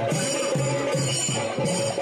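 Temple procession music: drums beating a steady rhythm about two or three strokes a second, with jingling metal percussion and a held high tone over it.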